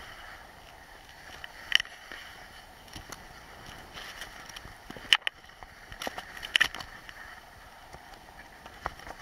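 Skis sliding and scraping over chopped-up piste snow on a downhill run, a steady hiss with a few sharp clicks about two, five and six and a half seconds in.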